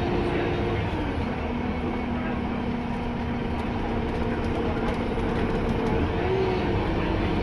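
Alexander Dennis Enviro200 MMC bus's diesel engine running: its tone drops about a second in, holds steady, then rises again near the end as the engine works harder, with a faint high turbo whistle climbing alongside it. A few light clicks and rattles come through over the engine.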